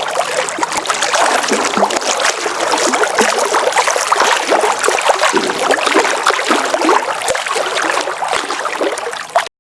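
Water splashing and sloshing, as of a kayak being paddled. It cuts off suddenly near the end.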